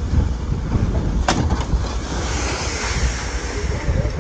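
Strong wind buffeting the microphone over a rough, heaving sea, as a steady loud rumble, with one sharp knock about a second in.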